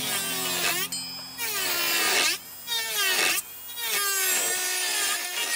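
Battery-powered Mystisa micro motor handpiece running a burr over wood, smoothing a carving; its whine sags and recovers in pitch as the burr bites, with brief lifts off the wood about two and a half and three and a half seconds in.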